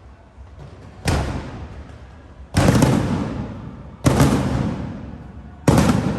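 High-altitude aerial firework shells bursting: four loud booms about a second and a half apart, each trailing off in a long rumbling decay.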